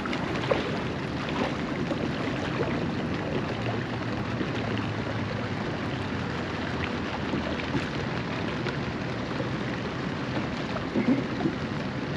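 A huge flock of cormorants on the water: a dense, steady patter of small splashes and wingbeats as birds move and lift off, over the low, steady hum of a Sea-Doo GTX 170 idling.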